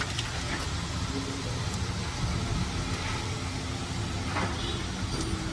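Steady low mechanical rumble, with a few faint clicks and rustles as the transmission's plastic wiring connector is handled.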